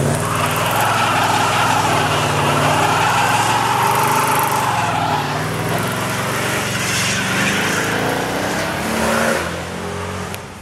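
Chevrolet Camaro Z28's V8 engine held at high revs in a burnout, the rear tyres screeching with a wavering squeal as they spin and smoke. The sound drops off near the end.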